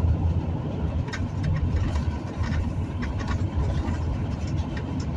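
Steady low engine and road rumble of a vehicle driving along a highway, heard from inside the cabin, with a few faint ticks.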